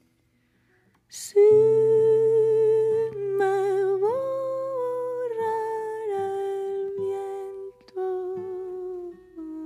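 Music: after about a second of silence, a solo voice sings or hums without clear words in long held notes with a wide vibrato, stepping up in pitch and falling back, over low sustained notes, in a flamenco style.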